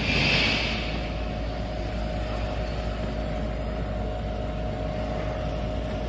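City street traffic: a steady low rumble with a faint steady hum, and a short hissing swell in the first second as vehicles pass on the snowy road.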